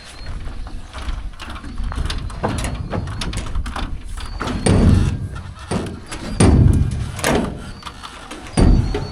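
Repeated clanks and knocks, with three heavy thuds about two seconds apart in the second half.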